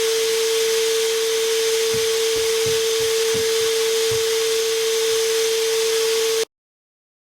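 Ridgid cordless NXT wet/dry vacuum running steadily on battery power: a constant motor whine over rushing airflow hiss, with a few faint low knocks in the middle. The sound starts abruptly and cuts off suddenly about six seconds in.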